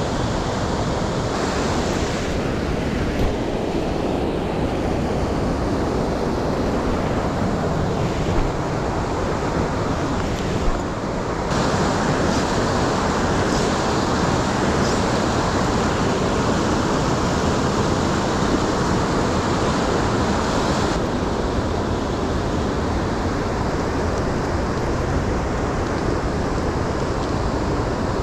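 Fast-flowing mountain stream rushing steadily, a loud even rush of water, with a few small knocks in the first half.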